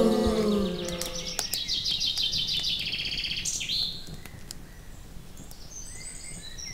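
Birds chirping in a rapid high twitter, preceded by a falling voice-like sound that dies away in the first second; the twitter thins to faint, scattered high calls near the end.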